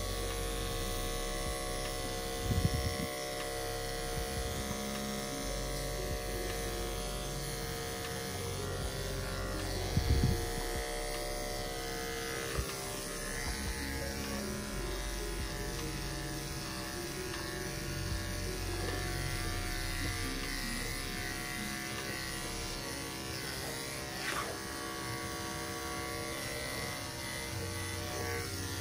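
Corded electric dog-grooming clippers running steadily as they shave a dog's coat, a constant buzzing hum. Brief knocks sound about two and a half and ten seconds in.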